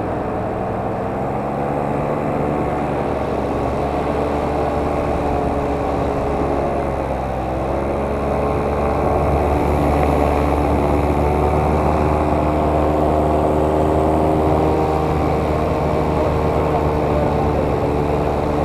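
A motor running at speed, with a steady low rumble under a pitched hum whose pitch dips briefly about seven seconds in.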